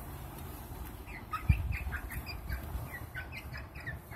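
Hens giving a quick string of soft, high chirping calls while pecking feed from a bowl. One low thump comes about a second and a half in.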